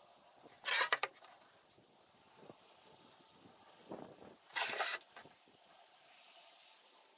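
Two short scratching strokes across a board, about a second in and again near five seconds: a circle being marked out, with a string pinned at the centre used as a compass.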